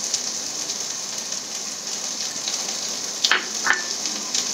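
Oil sizzling steadily in the pans as browned onion masala and okra fry, with two light knocks a little over three seconds in.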